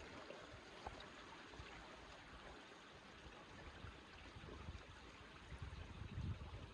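Faint, steady wash of small waves lapping at the shore, with a couple of soft low bumps near the end.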